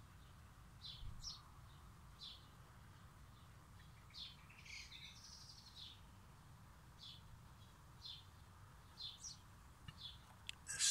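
Faint bird chirps: short high calls roughly once a second, with a longer, busier call about four seconds in, over a low steady background.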